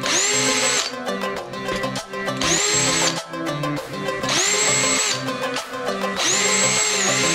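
Cordless drill run in four short bursts, about a second each, its motor whine rising quickly at each start and then holding steady while it drills, over background music.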